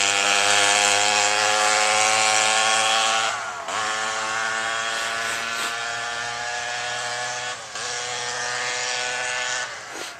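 Poulan 3400 56cc two-stroke chainsaw engine with a motocross expansion-chamber pipe, powering a scooter, running at high revs. About three seconds in it gets quieter, and the pitch dips briefly there, again a few seconds later and near the end as the throttle eases off.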